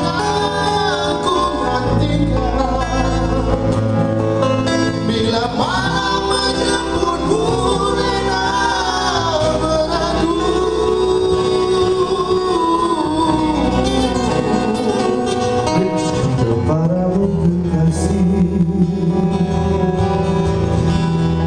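Men singing a song live into microphones, with held, gliding vocal lines, accompanied by acoustic guitar and bass guitar.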